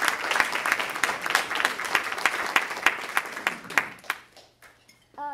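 Audience applauding, the clapping thinning out about four seconds in to a few last scattered claps.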